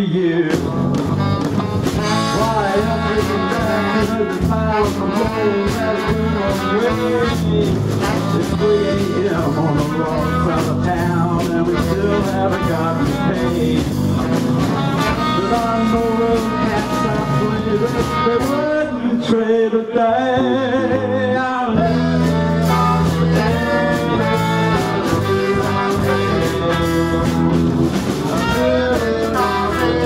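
Live blues band with electric guitar, bass, drums, saxophone and a brass horn playing an instrumental passage with the horns prominent. About twenty seconds in, the low end drops out for a couple of seconds, then the full band comes back in.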